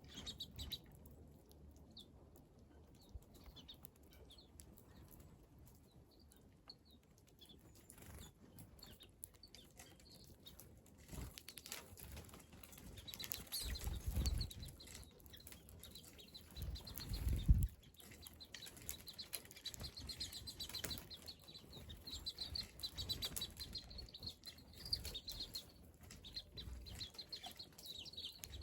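Small wild birds at a terrace, chirping and fluttering their wings. The high chirps are scattered at first and become a steady chatter from about halfway in, with two brief low rumbles near the middle.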